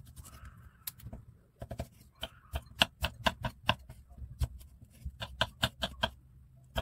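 Kitchen knife chopping young cucumbers into large chunks on a wooden cutting board: a quick run of sharp knocks as the blade cuts through and hits the board, a few at first, then about four a second.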